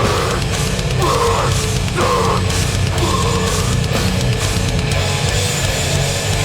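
Live metallic hardcore band playing at full volume: heavily distorted guitars, bass and drums, with a riff that repeats about once a second.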